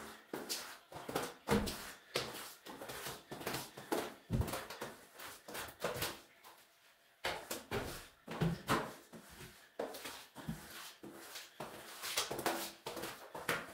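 Rubber floor squeegee dragged in repeated short strokes across wet ceramic floor tiles, pushing water off the floor: a string of scraping swishes, with a pause of about a second a little past the middle.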